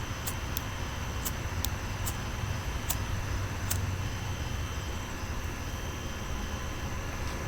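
Steady outdoor background noise with a low rumble, with several faint sharp ticks in the first few seconds.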